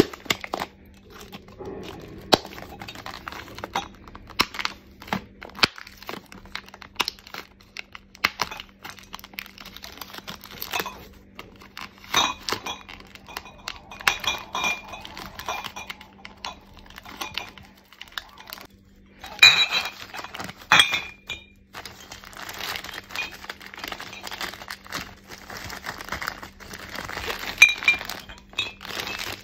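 Plastic shrink-wrap crinkling and tearing as it is pulled off a six-pack of glass drink bottles, with the bottles clinking against each other. The sharpest clinks come about two-thirds of the way through and near the end.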